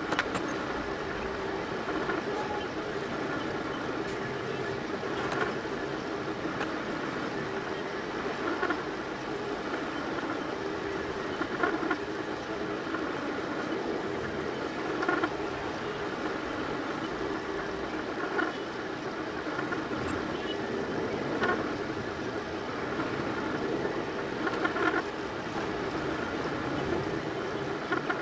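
Delta 3D printer running mid-print: a steady hum from its stepper motors and fan, with a brief louder move about every three seconds.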